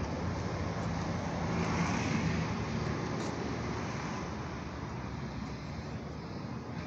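Road traffic: a vehicle passing, swelling to its loudest about two seconds in and then fading.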